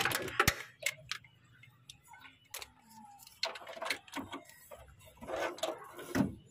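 Socket ratchet wrench with an extension clicking in short bursts while working a bolt in a diesel engine bay, with metal knocks and handling rattles. The loudest burst of clicks comes right at the start, and two more runs of clicking come in the second half.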